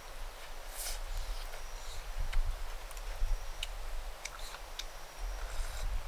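Low wind rumble on the microphone, with scattered light clicks and taps.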